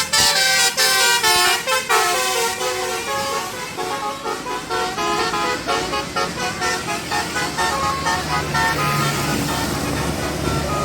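Bus 'telolet' multi-tone musical air horn playing a fast tune, its notes changing several times a second. A low rumble rises underneath near the end.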